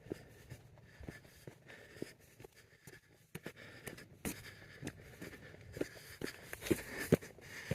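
Footsteps scuffing and crunching on a dirt and rock trail: irregular steps, getting busier about halfway through.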